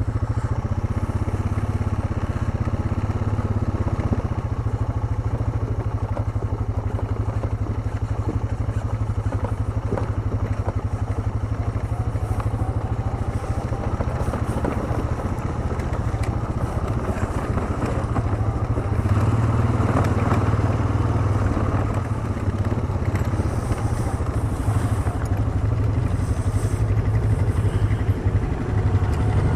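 ATV engine running steadily under way on a trail, with some light clatter, getting a little louder about two-thirds of the way through.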